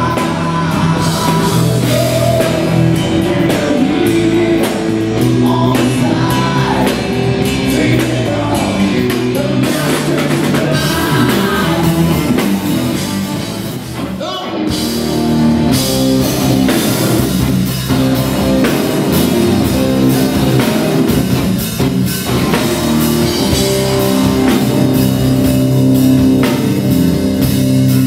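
Live rock band playing: a man singing over electric guitars, bass and drums. About halfway the sound breaks off briefly, then the band comes back in with drums and guitars.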